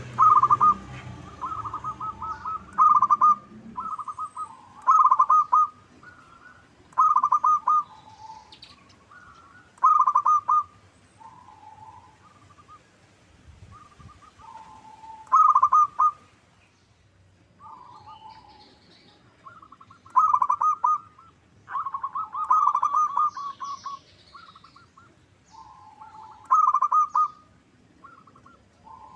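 Zebra dove (perkutut) cooing, phrase after phrase of quick pulsed notes, each about a second long, with short pauses between them. This is the kind of song used as a lure to set other perkutut calling.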